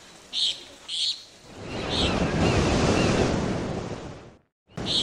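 Ocean wave surging in and washing back out, a broad swell of noise that builds and fades over about three seconds, with a few short high chirps before it and just after.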